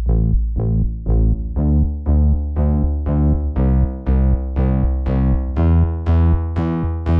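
Background music: an electronic keyboard/synthesizer track playing a quick, steady run of short notes over a sustained bass.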